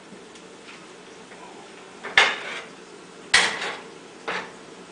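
Metal pots and utensils clanking on the stovetop: two sharp clanks with a short ring about a second apart, then a lighter one, over a faint steady hum.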